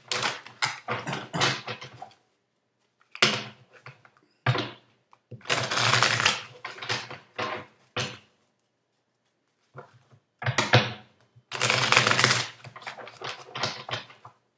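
A deck of tarot cards shuffled by hand: rapid rattling shuffles in about four bursts, with short pauses between them.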